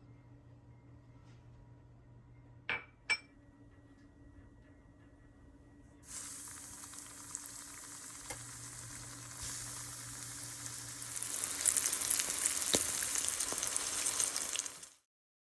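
Two short clicks, then breadcrumb-coated chicken croquettes sizzling in hot frying oil. The sizzle starts suddenly about six seconds in, grows louder twice and cuts off abruptly near the end.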